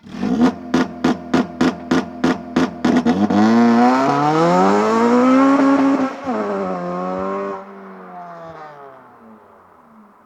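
Remapped Honda Civic Type R FN2's 2.0-litre four-cylinder engine held at the launch-control rev limiter, cracking and popping about three times a second for roughly three seconds. Then the launch: the revs sag, climb steadily under full acceleration, dip once at a gear change, and the engine sound falls away sharply and fades.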